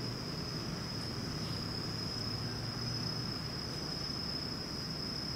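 Steady high-pitched chirring of an insect chorus that holds without a break, over a faint low murmur.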